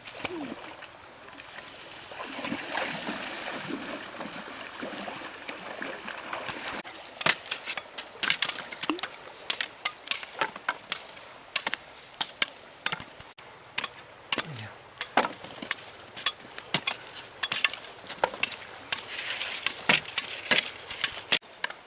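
Steady rush of a river at first; from about seven seconds in, many sharp irregular chops and knocks as machete and knife blades strike wooden sticks while they are cut and sharpened.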